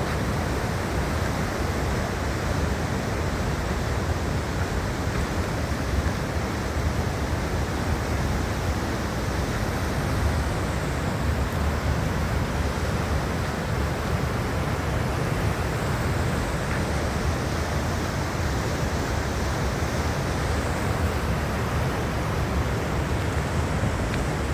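Steady outdoor rushing noise with a strong low rumble and no distinct events.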